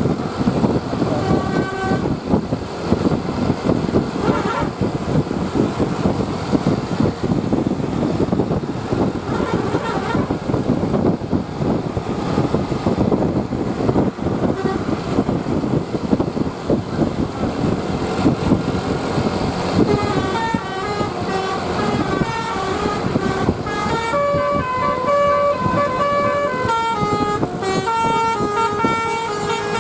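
A bus's telolet basuri melody horn playing a tune of stepped, sustained notes from about two-thirds of the way in, after a few short toots. Under it runs a dense, loud din of vehicle noise and voices.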